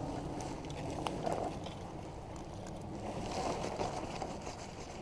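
Faint rustling and light crackling of dry reed and brush stems rubbing against a jacket and fishing rod, a little louder about three seconds in.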